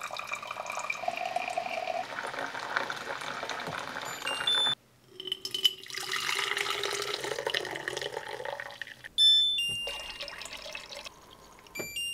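Water running from a countertop water purifier into a glass teapot, then tea poured into a tall glass pitcher, the pour's pitch rising as the pitcher fills. The purifier's electronic beeps sound briefly just before the pour and loudly about nine seconds in.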